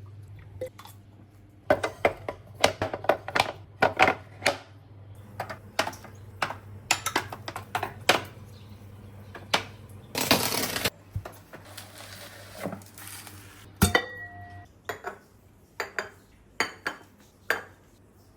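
Dishes, pots and metal utensils clinking and clattering as they are handled and set down, in quick runs of knocks. A short rush of noise about ten seconds in, and a brief high beep near fourteen seconds, over a low steady hum.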